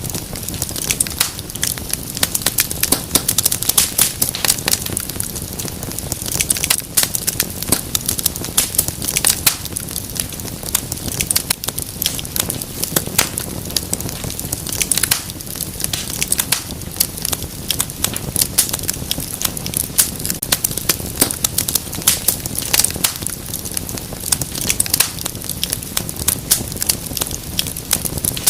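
Wood fire crackling steadily, with many small sharp pops and snaps over a low steady rumble of flames.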